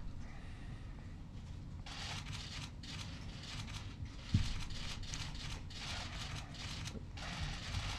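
A silent pause at a lectern microphone: quiet room tone with faint rustling and small clicks, and a soft low thump about four seconds in.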